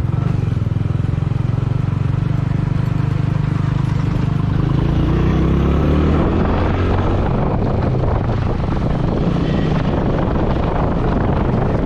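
Motorcycle engine running under way, with wind buffeting the microphone; about five seconds in the engine pitch rises as the bike accelerates, and the wind noise grows after that.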